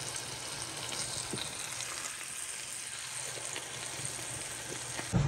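Raw-mince chicken kababs shallow-frying in oil in a pan: a steady sizzle with faint small crackles, cutting off abruptly just before the end.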